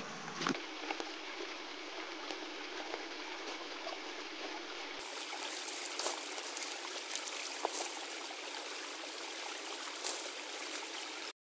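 Creek water running steadily at a cleared culvert pipe, with a few faint snaps and rustles of twigs and brush being thrown aside. The sound cuts off suddenly near the end.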